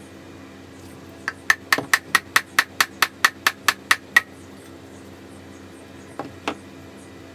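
A quick series of about a dozen metal-on-metal hammer taps, roughly four a second, each with a short clinking ring. Two lighter knocks follow about two seconds later.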